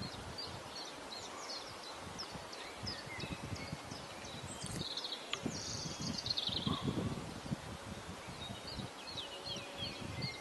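Small songbirds singing: a steady run of short, high chirps, with one louder song phrase falling in pitch about halfway through, over an irregular low rumble.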